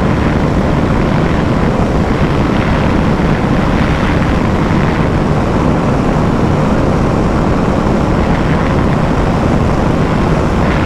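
KTM 390 Adventure's single-cylinder engine held at high speed near its top end, with loud, steady wind rush over the microphone and no change in revs.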